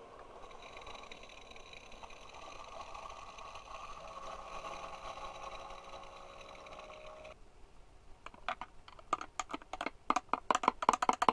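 Single-serve pod coffee machine brewing: a steady hiss and hum as the coffee stream pours into a ceramic mug, which cuts off abruptly about seven seconds in at the end of the brew cycle. A metal spoon then stirs quickly, clinking rapidly against the sides of the ceramic mug.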